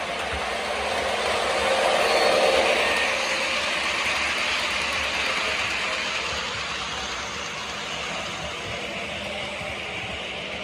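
Lionel American Flyer S gauge Polar Express steam locomotive and its loaded flatcars running past on floor-laid track. The sound grows louder about two seconds in as the locomotive passes close, then fades as the cars roll by.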